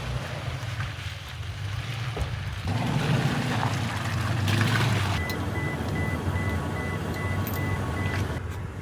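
Truck engine running with a steady low rumble, heaviest in the middle, and a thin high intermittent tone in the second half.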